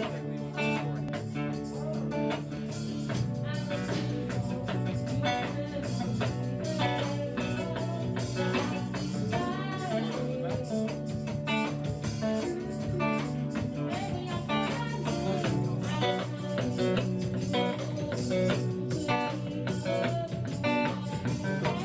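A student band playing a song, led by plucked and strummed guitars over a steady low bass line, with keyboard.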